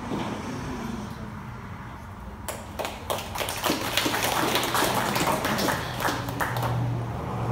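Audience applauding, with many hands clapping starting about two and a half seconds in. A low steady hum joins near the end.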